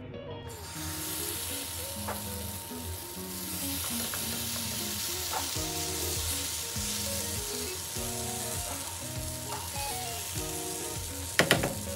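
Adai dosa batter sizzling on a hot tawa as it is poured and spread round with a steel ladle. Soft background music plays underneath.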